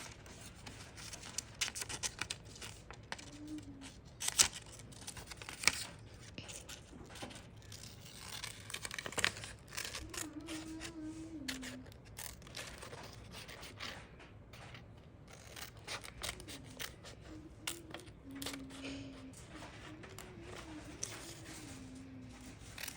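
Scissors snipping through paper in scattered, irregular cuts, with the paper rustling and crinkling as it is turned.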